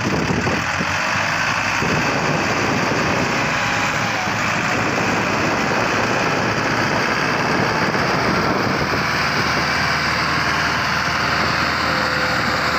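Tractor engine running steadily and loudly, close by.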